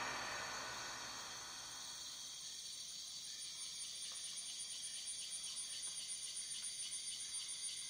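Drum-backed music fades out over the first two seconds. After that comes faint, high-pitched cricket chirping in a fast, even pulse.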